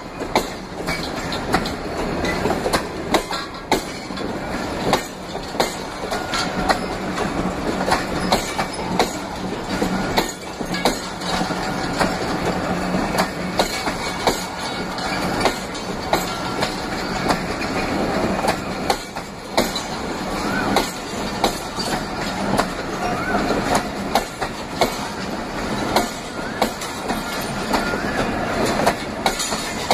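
Pakistan Railways passenger coaches rolling past close by, their wheels clattering over the rail joints in a continuous clickety-clack with a steady rumble. A few faint wheel squeals come in the second half.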